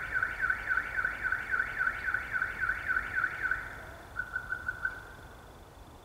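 A high warbling tone repeating about five times a second with machine-like regularity, like an alarm; about four seconds in it changes to shorter, quicker beeps, then stops.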